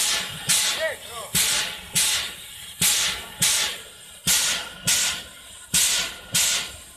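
Borsig-built steam tank locomotive FCL 353 standing with steam up, giving off short sharp hisses of steam in a steady rhythm, in pairs about twice a second.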